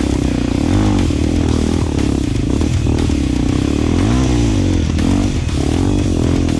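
Single-cylinder four-stroke Honda dirt bike engine running under riding load, revving up and easing off about three times as the throttle is worked.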